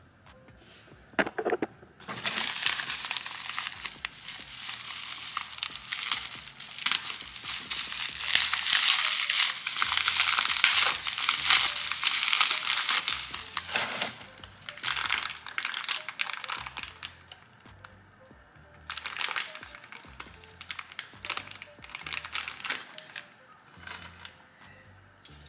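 Plastic bubble-wrap packing crinkling and crackling as it is handled and pulled out of the box. There is a long dense stretch from about two seconds in to about fourteen, then quieter rustling, and another burst of crinkling between about nineteen and twenty-three seconds.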